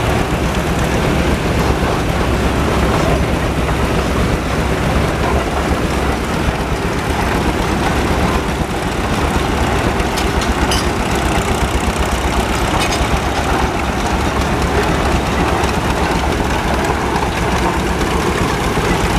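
Case steam traction engine running steadily as it moves along on its steel-cleated wheels, with other tractor engines running in the background.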